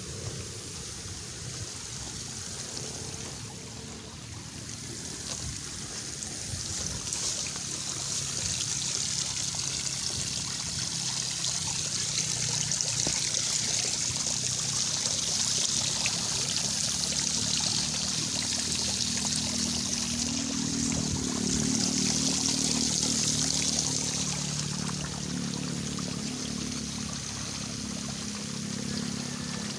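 Water running out of a fishpond's drain pipe, a steady trickling pour that grows louder through the middle. A low steady hum joins in the second half.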